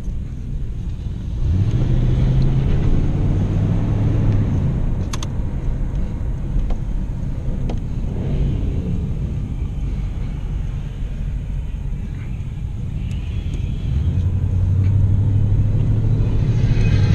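Car engine and road noise from inside the cabin while driving. The engine's low drone grows louder about a second and a half in, eases off after a few seconds, and grows louder again near the end.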